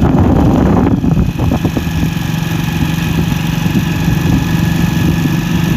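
Tractor diesel engine running steadily at an even pitch while driving along a road, with rumble and rushing noise from movement.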